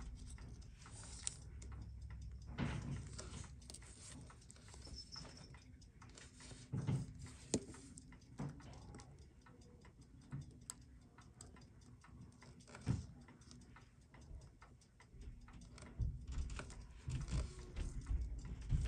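Faint, irregular small metal clicks and taps of steel tweezers working at a watch's automatic winding bridge, with a low steady hum underneath.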